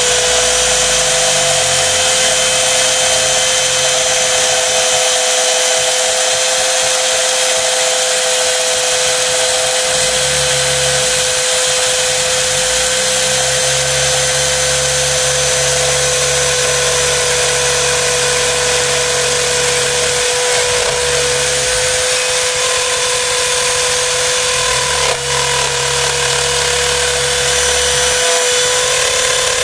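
Router motor on a homemade CNC router running at a steady high whine as its bit cuts into plywood. Beneath it, a lower hum from the machine's axis drive starts and stops several times as the cutter moves.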